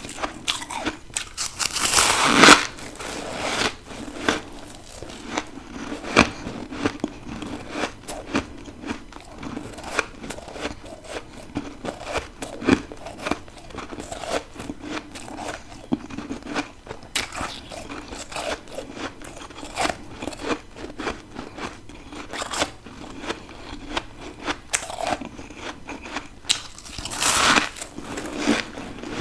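Close-up crunching and chewing of deep-freezer frost and ice chunks, with many small crackles. Louder crunching bites come about two seconds in and again near the end.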